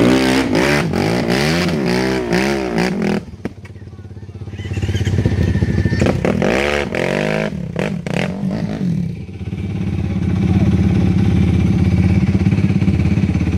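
ATV engine revving hard in bursts, its pitch swinging up and down as it works up a rocky rut. It drops off briefly about three seconds in, revs up and down again, then settles into a steadier run.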